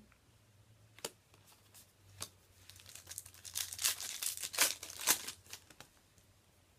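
Plastic foil wrapper of a Yu-Gi-Oh booster pack crinkling and being torn open: a couple of soft clicks first, then a run of crackles and rips from about halfway through.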